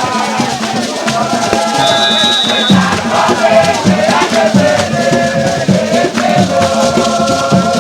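Jama music: voices singing together over steady drumming and rattling percussion.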